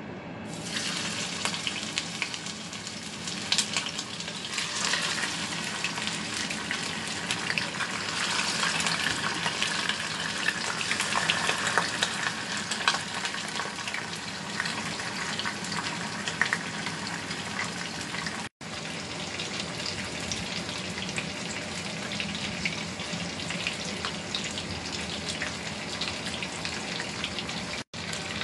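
Cornstarch-coated chub mackerel frying in hot oil in a non-stick pan: a dense sizzle and crackle of spattering oil that starts abruptly about half a second in and is loudest in the first half.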